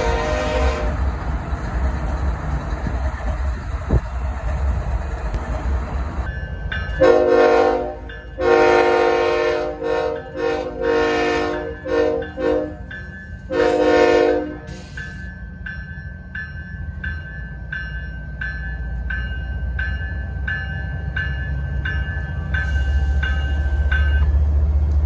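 Diesel locomotive air horn sounding in a long-long-short-long crossing pattern: two long blasts, a run of short blasts, then a final long blast, over a steady low engine rumble. After the horn stops, evenly spaced dings ring about twice a second over the rumble.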